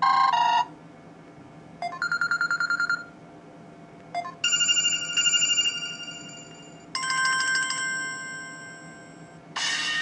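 Samsung Galaxy Mini 2 (GT-S6500) phone speaker playing its stock ringtone previews one after another, each cut short as the next is picked: a rapid pulsing bell tone about two seconds in, a brighter electronic melody from about four seconds, then a ringing chime that fades away, and a new tone starting near the end.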